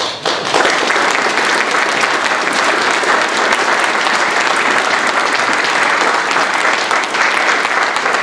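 Audience applauding: dense, steady clapping that builds about half a second in and keeps going.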